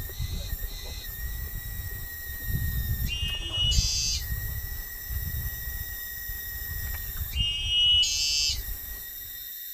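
An animal giving two shrill, pitched calls, each about a second long and some four seconds apart, over a steady high-pitched drone and a low rumble.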